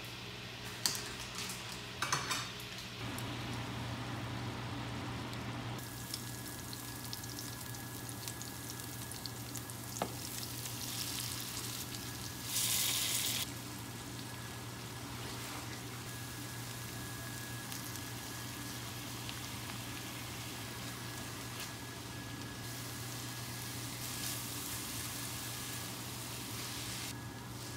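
Kimchi and vegetables sizzling in a hot nonstick frying pan as they are stir-fried with a silicone spatula, over a steady low hum. There are a few sharp clicks early on, and a brief louder sizzle about halfway through.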